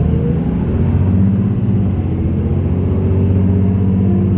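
Car engine and road noise while driving: a steady low hum whose pitch slowly rises as the car picks up speed.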